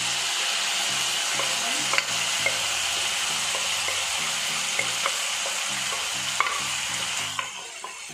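Cooked mutton and gravy sizzling loudly as it hits hot coconut oil with fried shallots and curry leaves in a pan, with a few sharp clicks. The sizzle dies down near the end.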